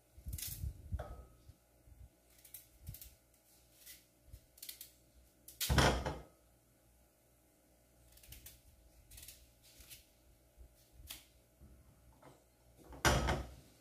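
Sweet potatoes being peeled by hand with a small knife: scattered light scrapes and clicks of the blade on the skin, with two louder knocks, about six seconds in and again near the end.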